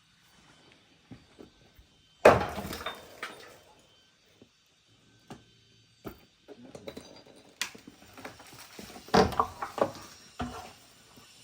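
A loud clattering crash of hard objects about two seconds in, then scattered knocks and a second burst of clattering near the end.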